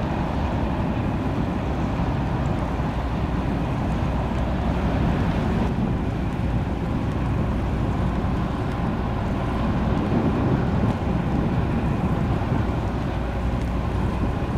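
Steady low rumble of harbour tugboats' diesel engines working to move a large cargo ship, mixed with wind buffeting the microphone.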